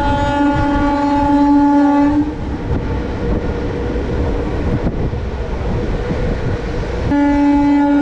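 Passenger train's horn sounding a long steady blast that cuts off about two seconds in, then sounding again about seven seconds in and holding, over the steady rumble and rattle of the moving coach on the rails.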